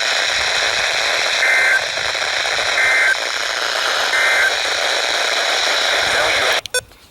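Emergency Alert System end-of-message signal: three short bursts of two-tone digital data, about a second and a third apart, over steady weather-radio static hiss. The static cuts out abruptly near the end.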